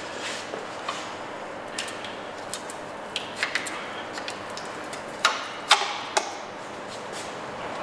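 Light metal clicks and taps as an oil seal housing plate is slid over its studs and seated against the engine's timing case, a scattered handful of sharp clicks with two louder knocks a little after five seconds in.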